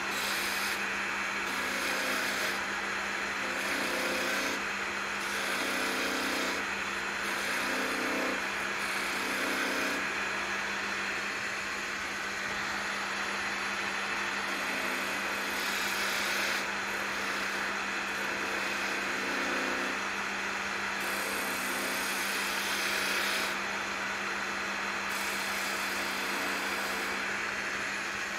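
Wood lathe running with a steady hum while a spindle gouge cuts the spinning green magnolia blank, the cutting noise coming and going in short strokes of a second or two.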